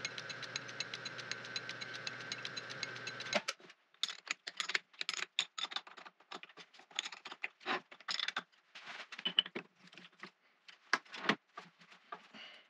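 1921 Dalton B4 metal lathe running, its drive belt clicking rapidly and evenly over a steady high tone, then stopping suddenly about three seconds in. After that come irregular clanks and rattles of metal tools and parts being handled on the lathe.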